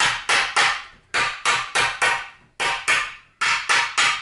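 Hammer tapping on the sheet-metal shroud of a Predator 212cc engine, bending it in a little for clearance: a run of quick, sharp metallic taps, about three a second, in short groups of three or four with brief pauses between.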